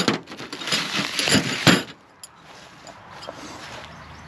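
Metal tent pegs clinking against each other while a plastic bag crinkles as they are pulled out, busy for about the first two seconds, then much quieter.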